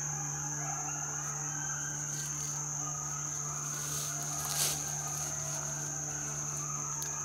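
Woodland insect chorus, a steady high-pitched drone, with a brief soft knock about four and a half seconds in.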